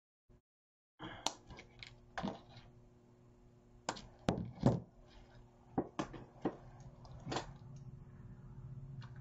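Wire cutters snipping the wire stems of artificial boxwood sprigs, and the tools being handled and set down on a cutting mat: a string of sharp separate clicks and snaps over a faint low hum.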